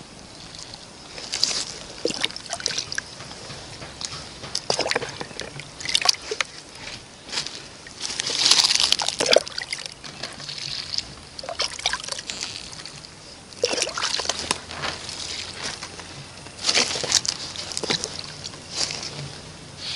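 Liquid organic fertilizer poured from a small plastic cup onto the base of young plants through plastic mulch, splashing and trickling in several short pours a few seconds apart, the longest about eight seconds in.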